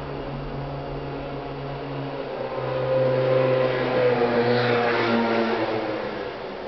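Electric train passing the level crossing: a whine of several steady tones that swells about three seconds in, slides down in pitch as it goes by, then fades.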